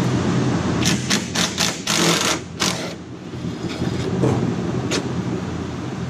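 A cordless power tool working a bolt at the battery tray: a quick run of sharp clicks and rattles in the first half, with one more click near the end. Under it runs a steady low drone.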